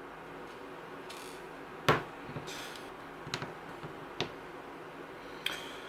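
3D-printed plastic hinge parts clicking as they are pushed into place: a few sharp, separate clicks, the loudest about two seconds in.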